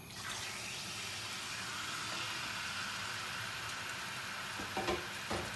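Diced raw chicken hitting hot oil in a frying pan and sizzling, starting suddenly and then running steadily. A couple of light knocks near the end.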